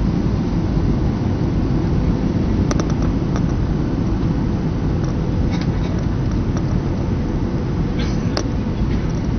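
Steady low rumble of a jet airliner's engines and rushing air, heard from inside the passenger cabin in flight, with a faint steady hum above it.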